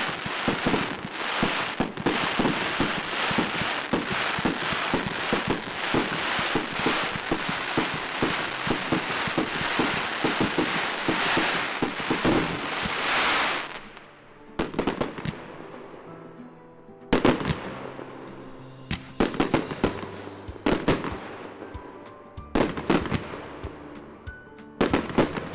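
Diwali firecrackers going off: for about the first half, a dense, rapid string of cracks over a loud hiss. Then the level drops suddenly, and separate sharp bangs follow in short clusters every few seconds, with background music faintly beneath.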